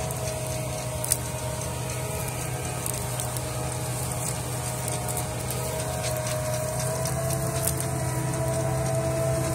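John Deere 8400R tractor's diesel engine running steadily under load as it pulls a drainage plough through the soil, laying drain pipe. There is one sharp click about a second in.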